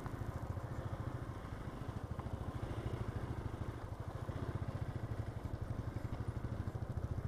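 Single-cylinder engine of a Hero XPulse motorcycle running steadily under way, a fast, even low pulsing.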